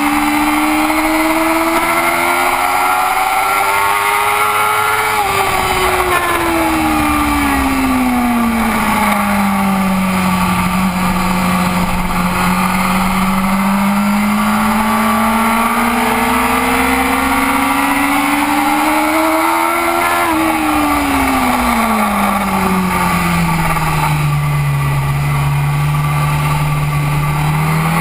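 BMW racing motorcycle's engine heard from onboard at race pace: the revs climb for about five seconds, fall away as the bike slows, build slowly again, drop once more about twenty seconds in, and rise near the end.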